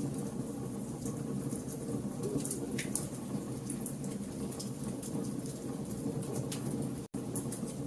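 Wood fire of burning logs: a steady low rush of flame with frequent sharp crackles and pops of varying loudness. The sound drops out for an instant about seven seconds in.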